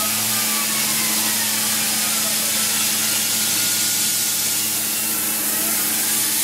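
Tormach PCNC 1100 CNC mill running the last pass of a spiral grease-groove cut: a steady machine hum under a noisy cutting hiss, with faint whines sliding slowly up and down in pitch as the axes move.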